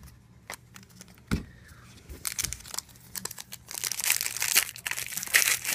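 A few light clicks of trading cards being handled, then the crinkling and tearing of a hockey card pack wrapper being ripped open, getting busier and louder over the last two seconds.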